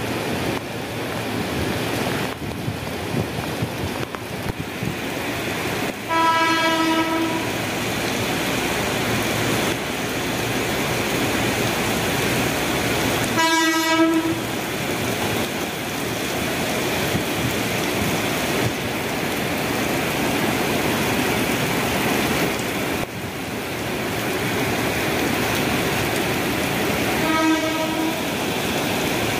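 Horn of KRL Commuter Line electric trains (an ex-JR 205 series set among them), sounding three single-note blasts of about a second each, one roughly every seven to fourteen seconds. Under the blasts is the steady hiss of heavy rain.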